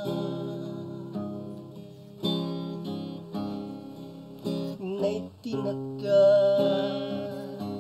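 Music: an acoustic guitar strumming chords, a few changes a few seconds apart, in the instrumental gap between sung lines of a Tagalog song.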